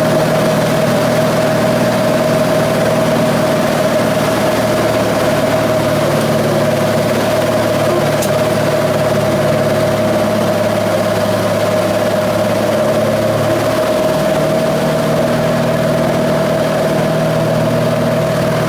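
Engine and propeller noise of a 1958 Cessna 182 heard inside the cabin during an approach to land: a steady, loud drone with a strong hum, mixed with wind noise. The lower engine tones shift slightly about halfway through.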